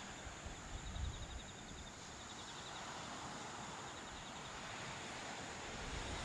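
Faint outdoor ambience: insects chirping in quick repeated pulses over a steady hiss, with a weak low rumble underneath.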